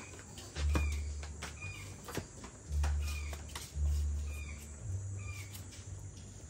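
Birds chirping with short falling calls, over a few sharp clicks of a knife slicing through a cucumber held in the hand. Dull low thumps, each lasting about a second, come four times and are the loudest sounds.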